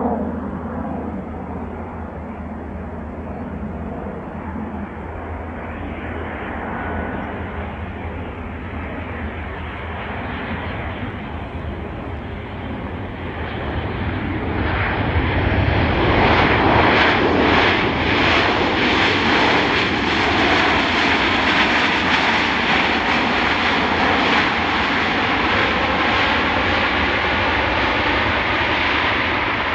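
Jet engines of a landing Boeing 737 airliner running on approach, then a louder, steadier roar from about halfway through as it rolls out along the wet runway after touchdown.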